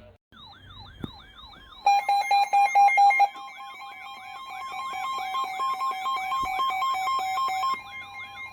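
Emergency alert tones sounding over each other. A warbling siren-style tone rises and falls about three times a second. About two seconds in, a two-tone alert attention signal joins it, first loud and pulsing rapidly, then held steady until it drops off near the end.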